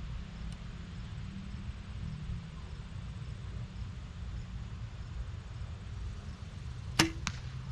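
A Mathews V3 compound bow being shot about seven seconds in: one sharp snap of the string and limbs on release, with a brief ring. A second, fainter knock follows about a third of a second later. Before the shot there is only a low background rumble while the bow is held at full draw.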